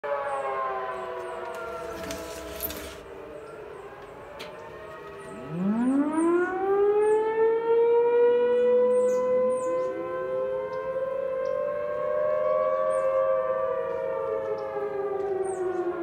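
Outdoor warning sirens during a test: distant sirens wind down at the start, then about five seconds in a nearby Federal Signal Thunderbolt mechanical siren winds up sharply from a low growl to a loud wail in several tones at once. A second rising tone joins about nine seconds in.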